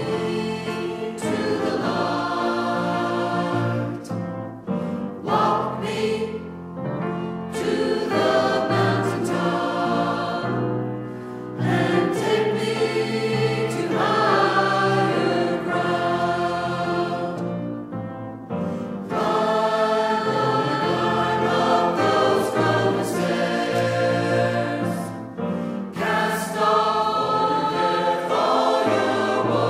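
Church choir singing a gospel hymn, in phrases with short pauses between them.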